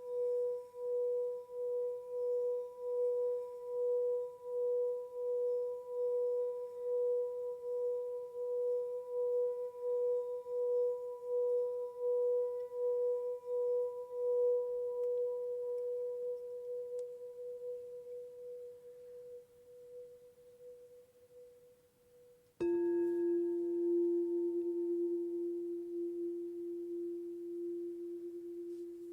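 Quartz crystal singing bowls: one bowl holds a single pure tone that wavers in a slow pulse, about one and a half pulses a second, and fades away. About 23 seconds in, a lower-pitched bowl is struck and rings on with a steady tone.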